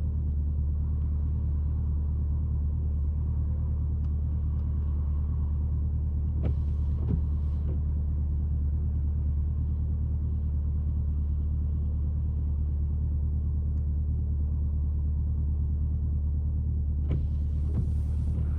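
Jeep Grand Cherokee SRT's HEMI V8 idling with a steady, even low rumble, no revving. There are a few brief faint noises about six to seven seconds in and again near the end.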